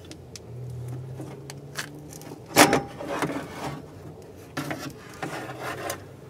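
A BMW E46 window regulator being worked out through the door shell, its metal rails and cables clinking, rubbing and scraping against the sheet-metal door. A sharp clack comes about two and a half seconds in, with a few lighter knocks after it.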